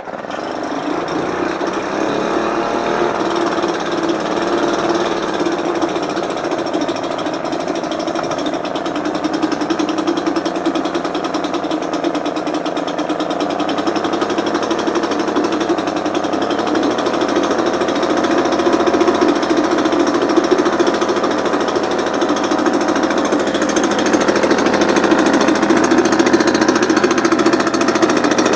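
1976 British Seagull Silver Century long-shaft outboard, a single-cylinder two-stroke, running in the water with a fast, rattling beat. Its speed wavers slightly, and it gets a little louder in the second half.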